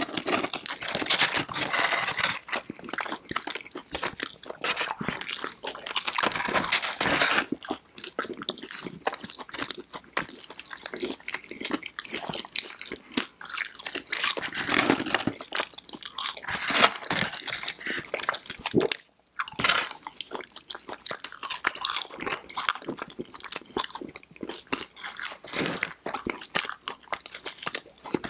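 Close-miked eating sounds: two people biting and chewing crispy breaded chicken fingers, crinkle-cut fries and toast, a dense crackle of crunches mixed with wet chewing, broken by a brief silence about two-thirds of the way in.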